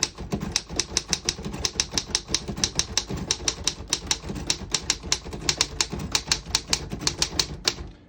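A 1938 Royal KHM manual desktop typewriter being typed on quickly, with its keys and typebars striking the platen in a steady stream of clacks, about seven a second, that stops shortly before the end. The action is working well, with no keys skipping.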